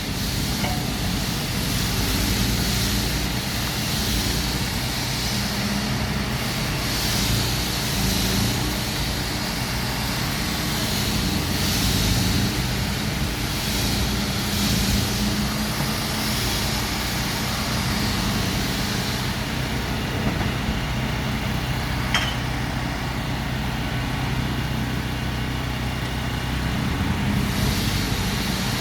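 Diesel engine of heavy earthmoving machinery running steadily, with one brief sharp clank partway through.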